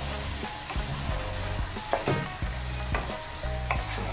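Sliced bell peppers and onion sizzling in a thick tomato sauce in a steel pan, stirred with a spatula that scrapes the pan now and then in irregular strokes.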